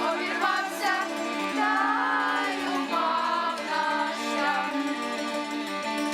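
Singing of a Ukrainian koliada (Christmas carol) in a traditional folk style, with long held and gliding notes over a steady backing.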